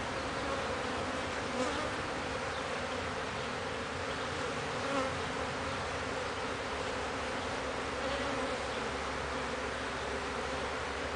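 Honey bees flying around an open hive, a steady many-bee buzz with single bees now and then humming close by and drifting away.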